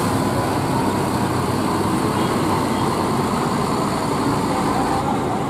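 A large coach's diesel engine running steadily as the bus reverses slowly into a parking bay.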